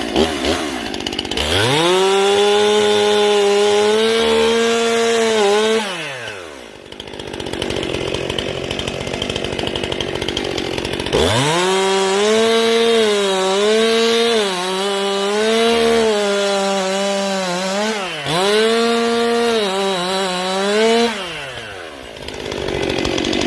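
New chainsaw revved to full throttle and cutting through wood easily ('like butter'), in two runs: one lasting a few seconds and one longer one with brief dips in pitch as the chain bites. Between and after the runs it drops back to idle.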